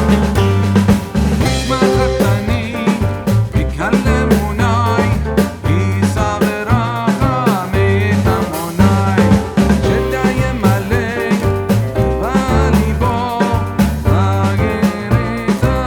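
Background music with a drum kit keeping a steady, upbeat rhythm and a melody line over it.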